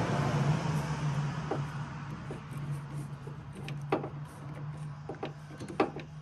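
Scattered sharp clicks and taps of a small wrench and plastic trim parts being worked on a car's rear door handle and latch, over a steady low hum. A rush of noise fades over the first two seconds.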